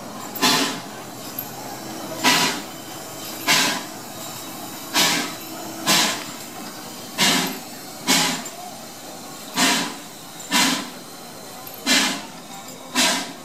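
Steam locomotive pulling away at low speed, its exhaust chuffing slowly and evenly, about one sharp chuff every second and a bit, each trailing off in a short hiss; eleven chuffs in all.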